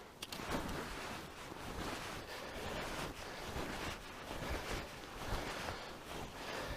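Wind buffeting the microphone in a snowstorm: a steady rushing hiss with uneven low thumps.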